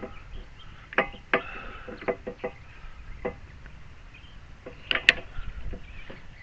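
Irregular sharp wooden knocks and clicks from a homemade bee-hive lifter as it is worked with a weighted box on it, some in quick clusters, the loudest pair about five seconds in.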